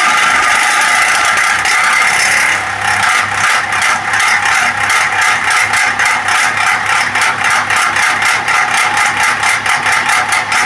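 Noisy exhaust fan running with a low hum. From about three seconds in a fast, regular rattle sets in, about five or six strokes a second. The repairer puts the noise down to dried-out oil in the motor's shaft bush bearing.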